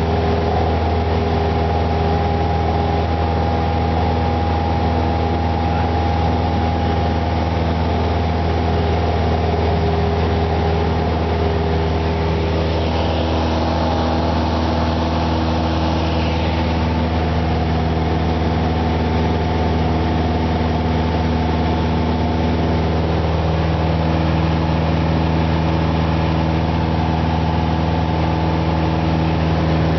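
Cessna 172's piston engine and propeller running steadily at takeoff power through the takeoff roll and climb-out, heard from inside the cabin as a constant drone.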